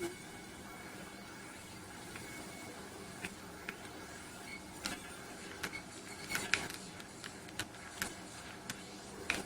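Plastic buttons of a Matricom G-Pad gamepad clicking irregularly under quick presses: sparse at first, coming thick and fast from about five seconds in, over a faint steady hum.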